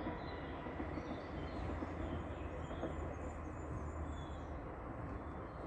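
Distant electric passenger train running on the line, a steady low rumble, with a few faint bird chirps over it.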